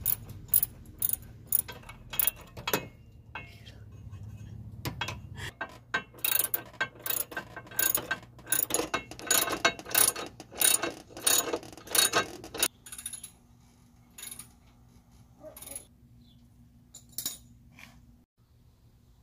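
Socket ratchet wrench clicking as a bolt is worked loose or tightened, in repeated strokes about twice a second at first. From about six to twelve seconds in the clicks come in quick dense runs, then only a few scattered clicks follow.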